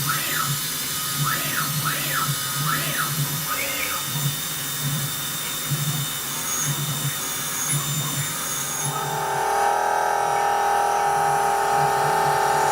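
Electric power saw running while cutting a blank from 18 mm plate. About nine seconds in, a strong steady whine comes in and holds.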